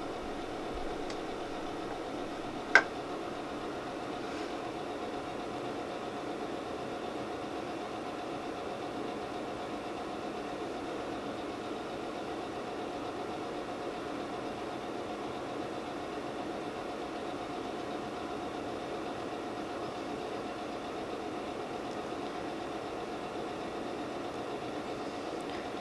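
Steady background hum with a faint constant tone in it, and one sharp click about three seconds in.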